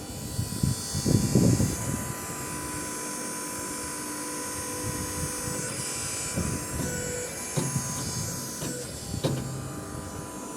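Saman (mud-brick) making machine running: a steady mechanical hum made of several fixed tones, with irregular low thumps and a few sharp knocks over it.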